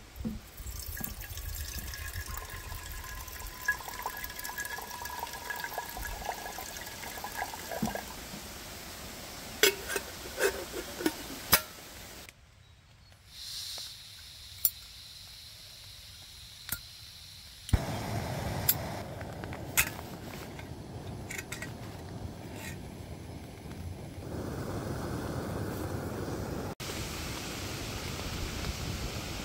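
Water running from a plastic jug's spout into a metal kettle, with a couple of steady tones as it fills, then several sharp clicks and knocks. A butane lighter clicks and an Optimus camping gas burner is lit; about two thirds of the way through, the burner's steady hiss takes over and continues.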